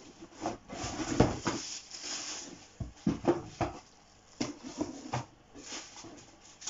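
Cardboard boxes being lifted out and moved by hand: irregular knocks, thuds and scuffs of cardboard.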